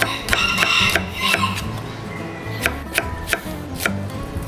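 Chef's knife slicing an onion on a thick wooden chopping board, the blade knocking on the wood with each cut: a quick run of cuts in the first second and a half, then four separate knocks.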